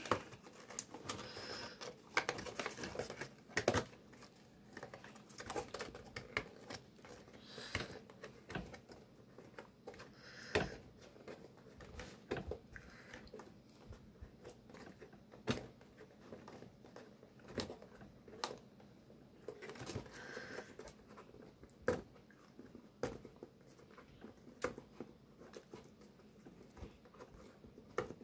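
Fingers picking and scratching at packing tape on a cardboard toy box, with irregular small clicks, scrapes and crinkles of the packaging.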